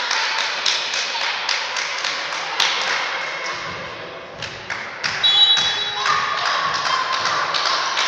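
Thuds and taps of a volleyball and players' feet on a wooden gymnasium floor, a string of short knocks in a large hall. A short high whistle sounds about five seconds in.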